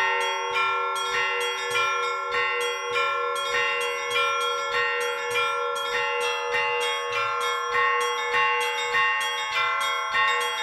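Church bells ringing a zvon: smaller bells struck in a quick, steady rhythm of about two or three strokes a second over the lingering tone of a deeper bell, with another bell's note joining about halfway through.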